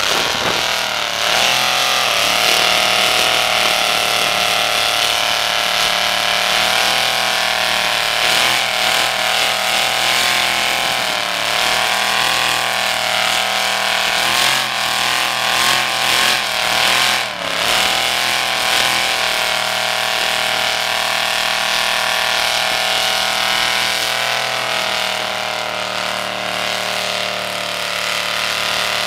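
Rat-rod hearse's engine held at high revs during a burnout, its rear tyres spinning and smoking on the pavement. The revs waver up and down through the middle and dip sharply once, then hold steady to the end.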